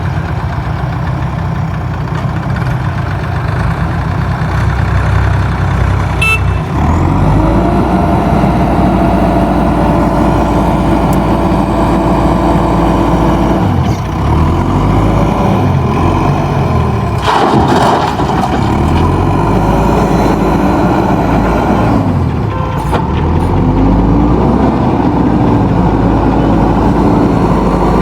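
JCB backhoe loader's diesel engine running under load, its pitch rising and falling over and over as the hydraulics work the bucket, with a short crash partway through.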